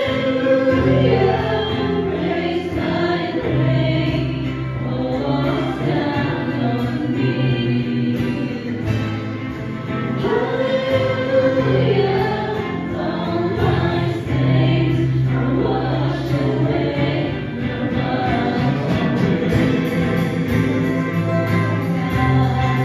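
A worship team of women and men singing a slow contemporary hymn together into microphones, held notes rising and falling, with acoustic guitar accompaniment.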